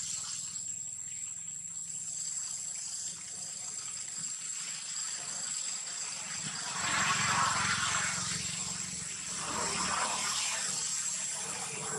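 Outdoor ambience: a steady high-pitched insect drone over a low distant engine hum, with two louder bursts of rustling about seven and ten seconds in.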